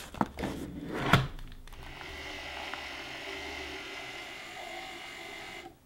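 Bambu Lab A1 3D printer at work: a few clicks and one sharp knock in the first second and a half, then steady motor whirring with a faint high whine that cuts off suddenly near the end.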